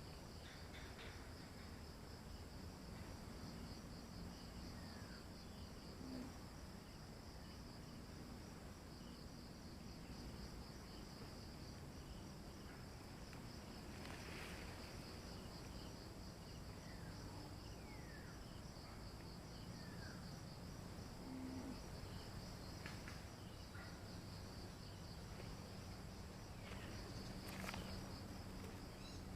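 Insect chorus: a steady, finely pulsing high trill, with a few short falling bird chirps and a couple of faint clicks near the end.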